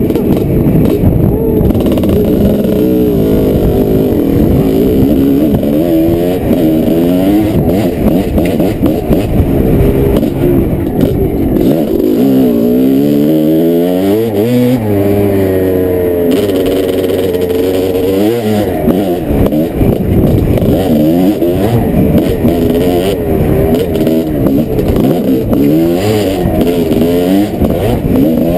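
Dirt bike engine revving up and down over and over as the rider works the throttle along a rough trail, with a steadier, lower-pitched stretch about halfway through.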